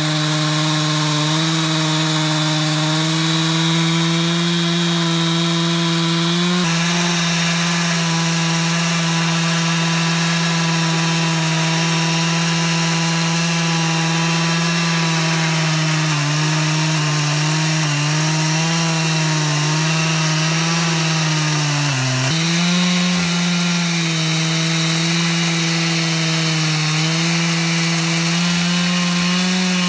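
Chainsaw on an Alaskan chainsaw mill, running at steady high revs under load as it rips lengthwise through a she-oak log. About two-thirds through the pitch dips briefly and recovers; near the end the revs rise as the saw clears the cut, then fall away.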